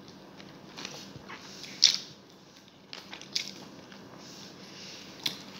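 Close-up mouth sounds of a person eating adobo and rice: lip smacks and chewing, with a few short sharp clicks, the loudest about two seconds in.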